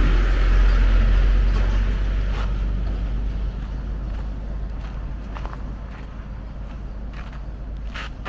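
Hino dump truck's diesel engine rumbling as it drives off along a dirt road, fading away over the first few seconds to a faint background.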